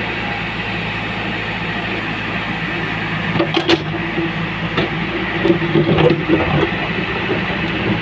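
JCB 3DX backhoe loader's diesel engine running steadily under load while the backhoe bucket digs in a narrow trench. Sharp knocks and scraping of the bucket against soil and stones come about halfway through and again about three-quarters in.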